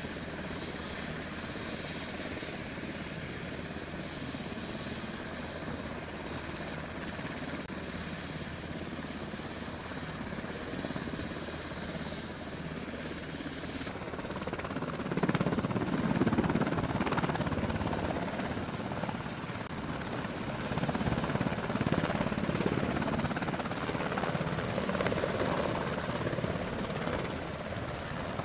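Navy MH-60 Seahawk helicopter running on a carrier flight deck, a steady turbine and rotor noise. About halfway through it gets louder and gustier, with rotor wash buffeting the microphone.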